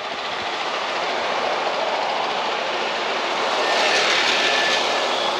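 Steady road traffic noise from a busy street, swelling as a vehicle passes close about four seconds in.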